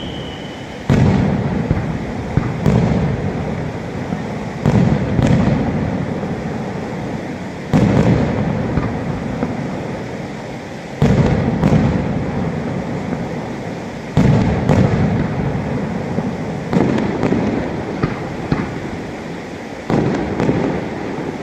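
Aerial firework shells bursting one after another, a dozen or so sharp bangs every one to three seconds, each trailing off in a long rolling rumble.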